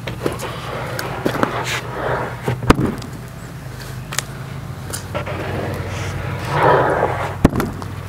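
Freshly sawn red oak boards being stacked and slid on top of one another: a series of sharp wooden knocks, the loudest nearly three seconds in and another near the end, with scraping as a board is pushed along the stack. A steady low hum runs underneath.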